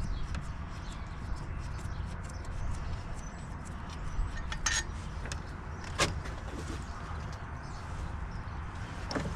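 A few sharp metallic clinks of hand tools, a wrench and socket on the compressor's mounting bolts, over a low steady rumble.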